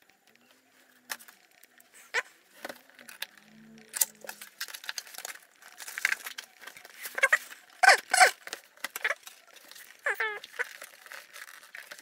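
Cardboard retail box being handled and opened: rustling, scraping and scattered clicks and taps of the packaging, loudest about eight seconds in.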